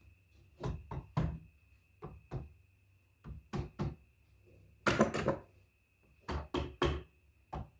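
Toys and packaging being handled: a series of short knocks and taps, about a dozen, with a louder scraping rustle about five seconds in. A faint steady high-pitched tone runs underneath.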